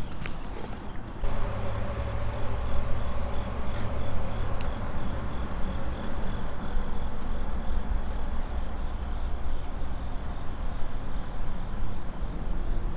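Kayak's electric trolling motor running with a steady low hum, which comes on about a second in.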